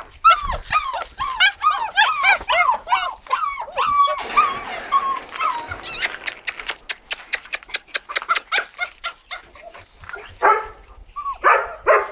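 Five-week-old white Swiss shepherd puppies whining and yelping: a fast run of short rising-and-falling whimpers for the first few seconds, then a longer whine, with more short yelps near the end. About midway there is a quick run of even clicks.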